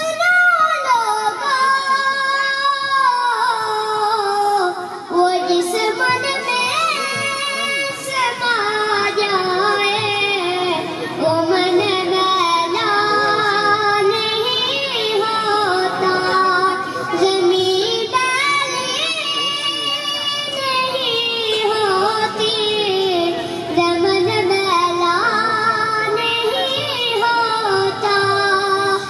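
A young boy singing a naat solo into a microphone, unaccompanied, in long held and ornamented melodic lines.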